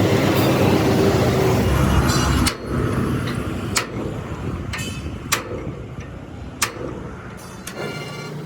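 A machine or engine runs with a steady low hum, then cuts off abruptly about two and a half seconds in. Three sharp knocks follow, a second or so apart, like metal being struck.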